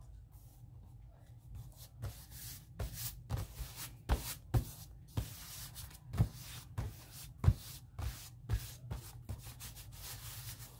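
Paper being rubbed and handled by hand: an irregular run of short scratchy strokes and brief rustles, starting about two seconds in, typical of pressing and smoothing a magazine cutout down onto a collage page.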